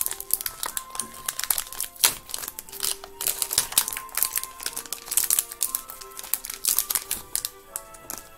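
A plastic foil Pokémon booster-pack wrapper crinkling and rustling as it is opened and handled. The crackle is dense and uneven and stops near the end, over background music with held notes.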